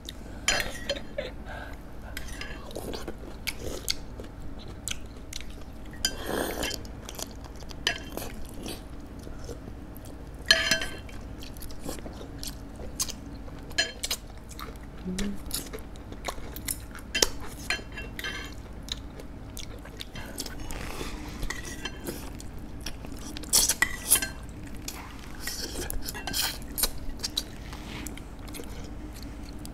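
Close-up eating sounds: chewing ginseng chicken soup (samgyetang), with chopsticks and a metal spoon clinking against the pots, in short scattered bursts over a steady low room hum.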